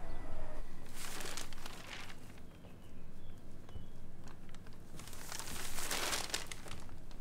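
Newspaper pages rustling as they are handled, twice: about a second in, and again, louder, around five to six seconds in.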